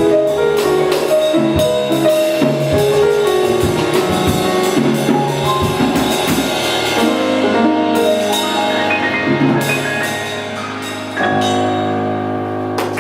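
Live instrumental ensemble with drum kit playing the final bars of a Christmas piece, closing on a held chord that cuts off just before the end.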